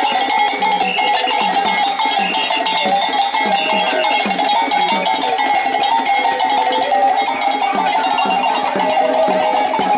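Many iron hand bells struck with wooden sticks in a steady, repeating rhythm, ringing together at several pitches.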